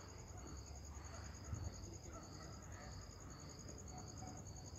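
Crickets chirping: a faint, steady high trill, with a second cricket's chirp repeating about twice a second.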